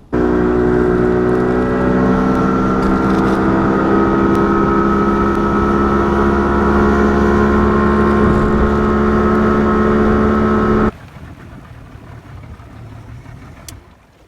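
A boat's outboard motor running steadily at speed, with the boat under way. It cuts in sharply at the start and cuts off abruptly near the end, leaving a softer rush of wind and water.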